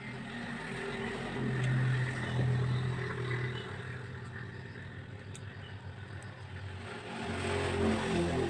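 A motor vehicle engine running, swelling up and fading twice: once about two seconds in and again near the end, like vehicles passing by.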